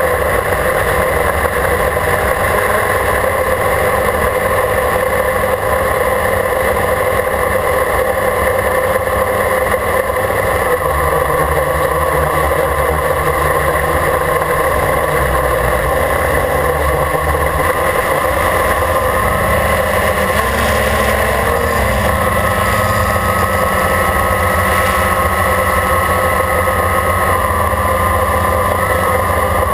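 Quadcopter motors and propellers whining steadily, heard close up from the camera mounted on the drone itself, a hum of several steady tones. About two-thirds of the way in, a slightly higher tone joins as the motor speeds change.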